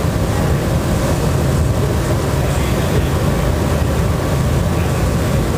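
Steady low rushing noise of a glassworks' gas-fired glory hole and furnaces running, with no breaks or changes.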